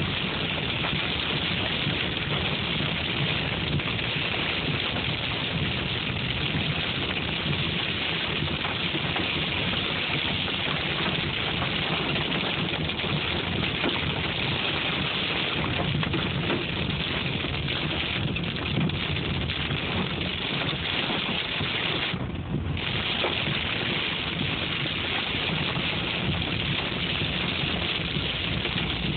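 Hail and heavy rain pelting a car's roof and windshield, heard from inside the moving car as a dense, steady clatter.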